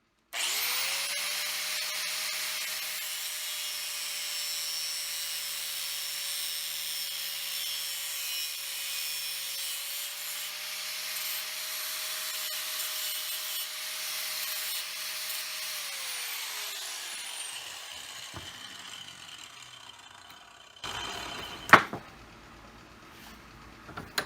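Handheld electric power tool spinning up and cutting through a latch mechanism bracket to shorten it, with a steady whine and a harsh cutting hiss for about fifteen seconds. It then winds down with a falling pitch. A single sharp knock comes near the end.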